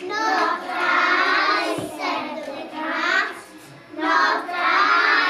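A class of young children's voices in unison, chanting a story aloud together in phrases of about a second, with a short pause about four seconds in.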